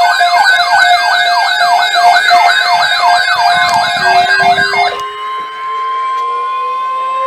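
Electronic siren sounding a fast up-and-down yelp, about three sweeps a second, that cuts off abruptly about five seconds in. A second siren slowly rises in pitch underneath, and a steady single tone holds through the end.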